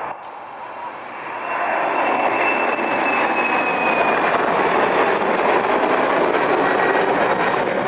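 Twin turbofan engines of a KLM Embraer E-Jet airliner at take-off power as it climbs away after lift-off. The jet noise swells about a second and a half in and then holds loud and steady, with a thin engine whine slowly falling in pitch.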